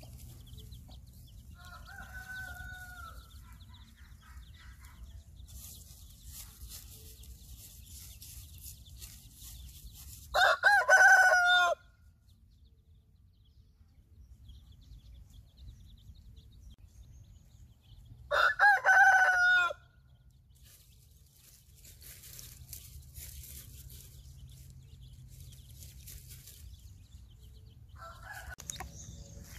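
Rooster crowing twice, two loud crows about eight seconds apart, each lasting about a second and a half.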